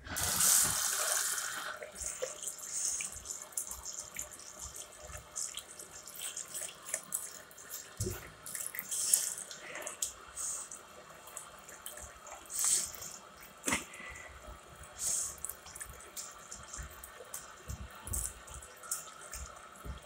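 Water from a tap running into a small Twyford Portman ceramic hand basin, loudest for about the first two seconds after it is turned on, then splashing unevenly as hands are washed under the stream.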